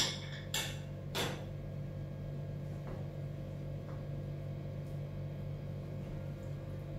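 A metal spoon clinks against a stainless steel wok three times within the first second and a half while rice is stirred and scooped. A steady low hum runs underneath, with a couple of faint ticks later on.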